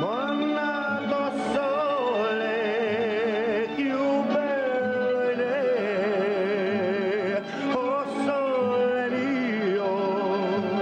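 Background music: a melody line with strong vibrato, swooping up at the start, over steady held accompaniment tones.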